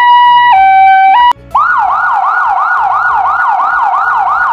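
Ambulance siren. It starts as a two-tone hi-lo siren switching between two pitches about every half second, cuts off a little over a second in, and then gives way to a fast yelp that sweeps up and down about three times a second. Faint background music plays underneath.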